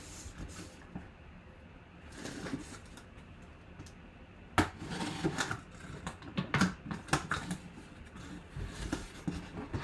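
Handling noises as a mini-helmet box is opened: rustling of packaging with a scatter of sharp clicks and knocks. The loudest click comes about four and a half seconds in, and more follow over the next few seconds.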